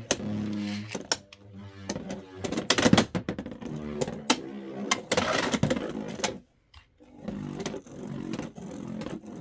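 Beyblade X top, Scorpio Spear on the 0-70 Zap bit, spinning in a plastic stadium after a launch: a pitched whirring hum under rapid sharp clacks and clicks as it hits and scrapes around the stadium. It goes briefly quiet about six and a half seconds in, then the whirring and clicking go on.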